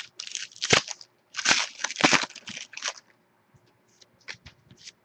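Foil trading-card pack wrapper crinkling and tearing in two spells of rustling, followed by a few light clicks of cards being handled.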